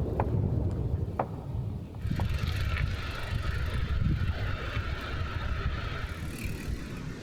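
Bicycle riding over a rough alpine track: a steady low rumble of tyres and wind on the microphone, with a few sharp rattling clicks in the first second or so. A higher hiss joins from about two seconds in and fades near the end.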